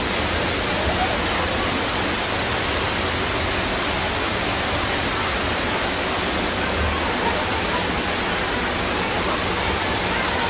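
Floodwater rushing in a fast torrent through a street, making a steady, even noise.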